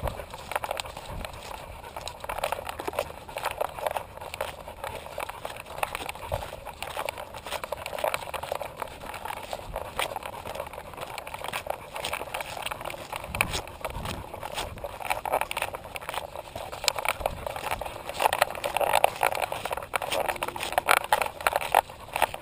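A camera strapped to a dog's harness jostling as the dog walks along a dirt trail. It makes a steady stream of irregular clicks, knocks and scraping.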